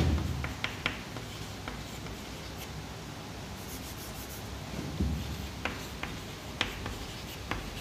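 Chalk on a chalkboard during writing: sharp taps and short scratches, a few near the start and more in the second half, with a dull thump about five seconds in.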